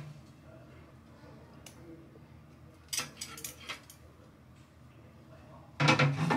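Air fryer basket and metal tongs: a few sharp clicks and knocks about three seconds in as the food in the pulled-out basket is turned over at the flip pause. A louder clatter follows near the end.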